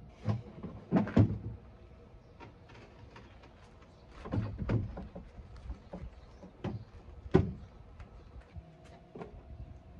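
Scattered knocks and clunks of wooden furniture parts being handled, the loudest about a second in and again around seven seconds in.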